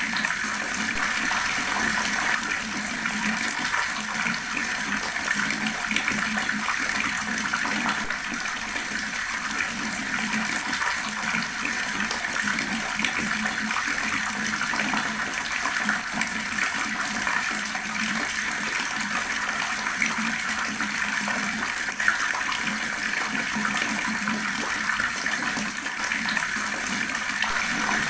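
Water running steadily from a tap, gurgling and splashing without a break.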